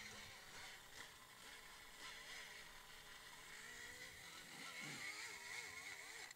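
Pneumatic die grinder running under load, grinding metal inside a 6-volt VW transaxle bell housing to open it up for a larger 12-volt flywheel. A steady high whine whose pitch wavers as the burr bites, cutting off abruptly at the end.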